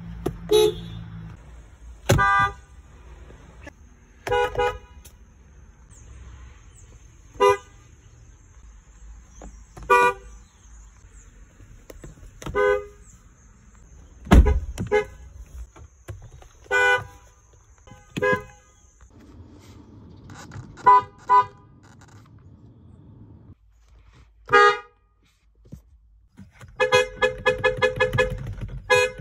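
A string of short car horn honks, one every two to three seconds, some of them doubled. Near the end comes a fast run of quick toots.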